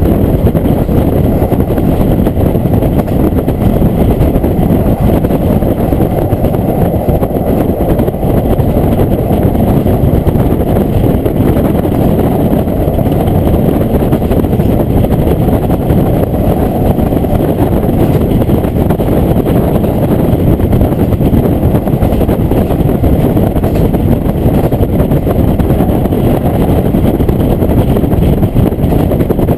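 Diesel railcar heard from inside the car while underway: a steady, loud engine and running rumble.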